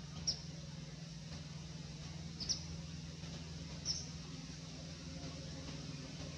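Three brief high-pitched animal chirps, about a second and a half to two seconds apart, the middle one a quick double, over a steady low hum.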